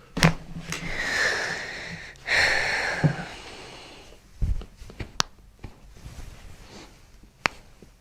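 A sharp crack just after the start, then two long breaths, one in and one out, and a few more short sharp cracks from the chiropractic adjustment, the clearest about five and seven and a half seconds in.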